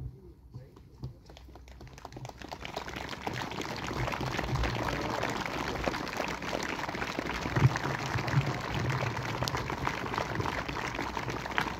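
Large crowd applauding, a dense patter of clapping that builds over the first few seconds and then holds steady.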